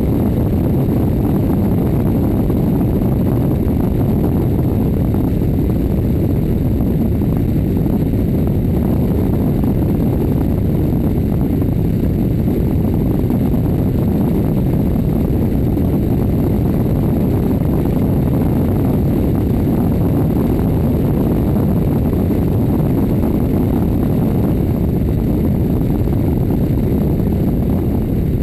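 Aircraft in flight: a steady, loud rush of wind and engine noise, picked up by a camera mounted outside on the plane's belly.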